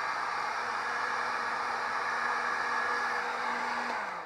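Electric heat gun blowing steadily, heating a table top's vinyl wrap to soften it for stretching around the edge. Near the end it is switched off and its fan winds down, the hum dropping in pitch as it fades.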